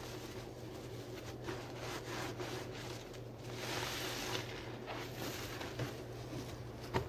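Soapy sponge being squeezed and rubbed by hand, wet squelching swells with water draining off it, over a steady low hum; a sharp click sounds near the end.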